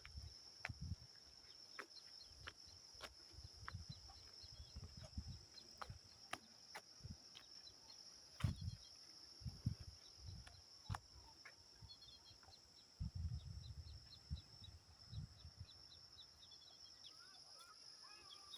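Faint rural outdoor ambience: a steady high drone of insects, bird chirps, and scattered low thumps, with a quick run of chirps near the end.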